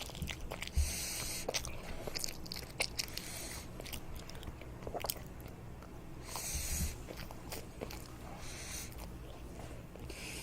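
A child eating toast close to the microphone: a few crunchy bites, about half a second in, near seven seconds and again near eight and a half seconds, with small mouth clicks and chewing between.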